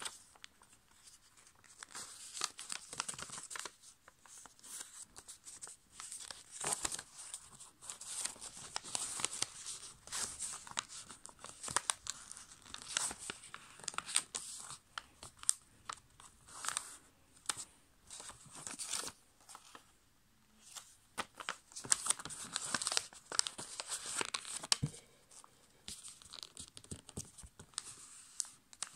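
A sheet of A5 copy paper being folded and creased by hand on a table: irregular crinkling and rustling with short sharp crackles as the folds are pressed flat, and a brief lull about two-thirds of the way through.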